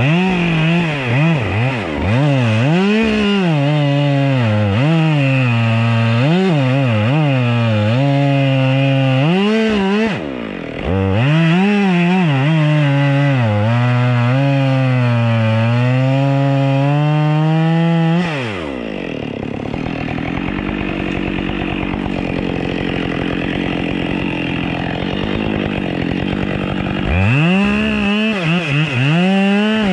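Two-stroke chainsaw cutting wood, its revs rising and falling as it works through the cuts, with a brief dip at about ten seconds. At about eighteen seconds it drops to a low idle for several seconds, then revs up again near the end.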